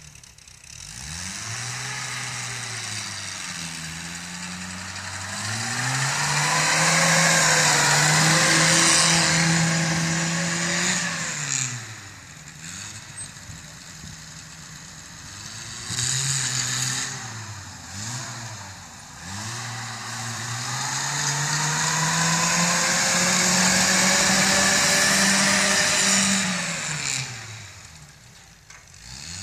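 Engine of a small soft-top 4x4 revved hard while drifting in circles on snow: it is held at high revs for several seconds twice, with a few quick throttle blips in between, and drops back near the end.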